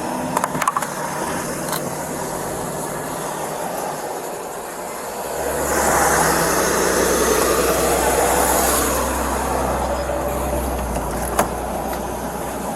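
Road traffic: a vehicle passes close by, its rumble and tyre noise building about five seconds in and fading away a few seconds later over steady roadside noise.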